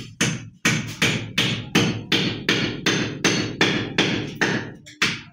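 Hammer blows driving nails into a plastered wall to hold electrical conduit in its channel: a steady run of sharp strikes, about three a second, with a brief pause near the end.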